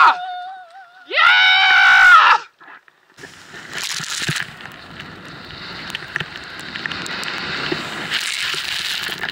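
A loud yell, then a second, longer shout about a second in. From about three seconds in comes a steady rushing hiss of wind and snow that slowly grows louder as the rider descends through deep powder.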